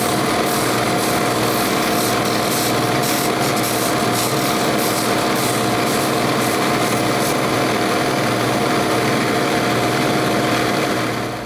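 Electric disc sander motor running steadily at speed, with the scratchy hiss of a wooden dowel end held against the spinning abrasive disc to round it off. The motor winds down near the end.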